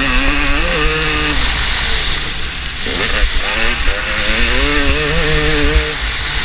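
Motocross bike engine pulling hard at full throttle, its pitch climbing, dropping, then climbing again about halfway through as the rider shifts and gets back on the gas, over a steady low wind rumble on the helmet-mounted microphone.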